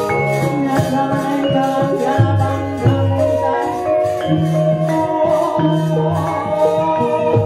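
Javanese gamelan orchestra playing: struck metallophones ringing in overlapping held notes over a steady pulse.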